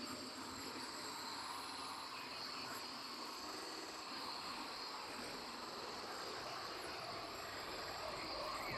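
Steady chorus of insects with high, constant whirring tones: a jungle-type night ambience.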